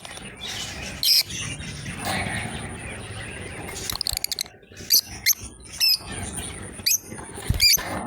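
Lovebirds giving short, shrill chirps: one about a second in, then a run of sharp calls in quick succession through the second half.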